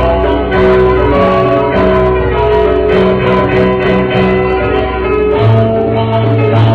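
Instrumental music with a steady beat; the bass line changes about five and a half seconds in.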